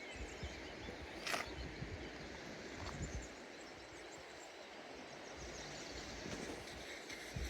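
Outdoor background noise with a steady hiss, irregular low rumbles and one sharp click a little over a second in.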